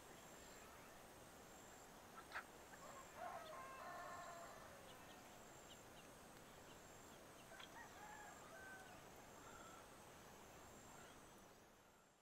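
Faint countryside evening ambience: a soft steady hiss under a high, even chirp that repeats about once a second. Two distant bird calls come a few seconds in and again past the middle. It all fades out at the end.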